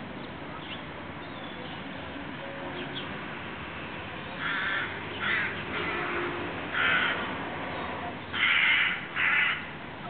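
A crow cawing: a run of about six harsh caws, each about half a second long, starting a little after the halfway point.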